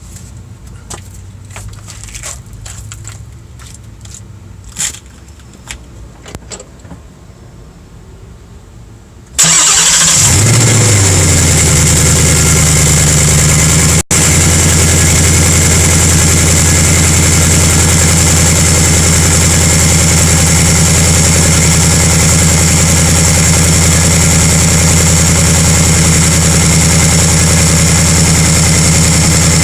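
About 9 seconds of faint clicks, then a 2018 Mustang GT's 5.0-litre V8 cranks, catches with a brief flare in revs and settles into a steady idle, heard from beneath the car. The owner suspects a clanking in the engine may be piston slap.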